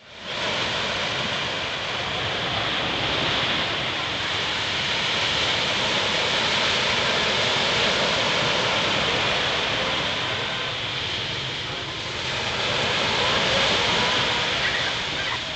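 Surf washing on a beach: a steady rush of waves that swells gently in level about halfway through and again near the end.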